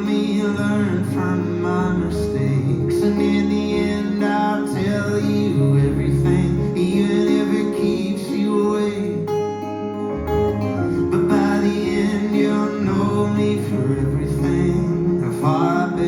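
Live band music: strummed acoustic guitar over sustained chords and a bass line that changes note about every two seconds, in a passage without sung words.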